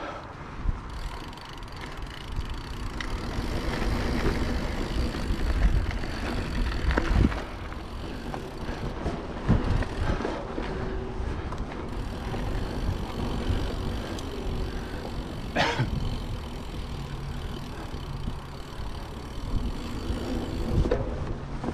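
Mountain bike being ridden along a trail: a steady rumble of tyres rolling over the ground, with occasional knocks and rattles from the bike over bumps.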